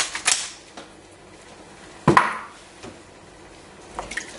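Pot and utensil sounds while stirring a pot of paella stock and rice: a couple of quick rasping clicks at the start, a sharp knock of a utensil against the pot about two seconds in, and lighter knocks of a spoon stirring near the end.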